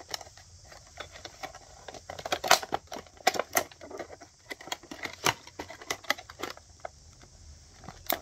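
Hard clear plastic packaging clicking and crinkling in the hands as a broadhead is worked out of its box, in irregular sharp clicks with a few louder snaps.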